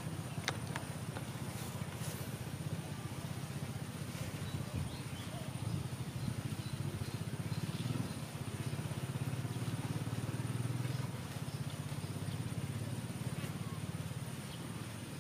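A steady low motor rumble that swells a little in the middle, with a thin, steady high tone above it.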